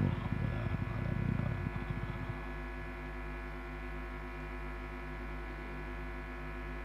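Steady electrical hum and buzz from the microphone's sound system, under a low murmur that fades out about two seconds in.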